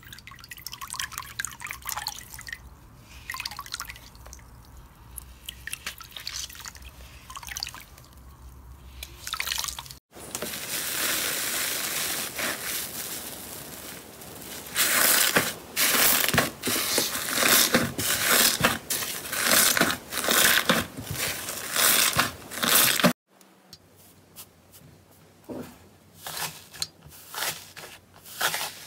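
Glitter-coated floral foam crunching and crackling as it is squeezed by hand. Then runny slime is stirred and lifted in a steel bowl, a loud wet dripping mess with a quick run of wet strokes in the middle. Near the end a slime's dried crust cracks faintly under a pressing hand.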